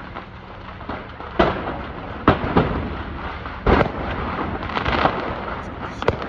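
Explosions going off in a large fire: about six sharp bangs and pops at irregular intervals over a rumbling background. The loudest come a little over two seconds in and just before four seconds in.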